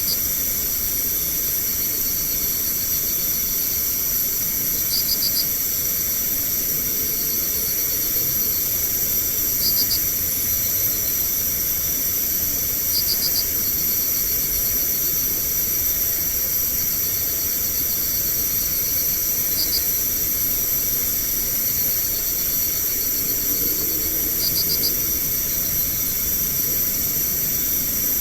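Night insect chorus: a steady high-pitched drone of insects, with a cricket giving short, rapid pulsed chirps every few seconds, over a constant hiss.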